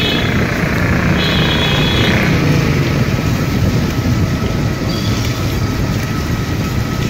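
Motor scooter riding in city traffic: the engine and road noise make a steady loud rumble, with a short high-pitched beep about a second in.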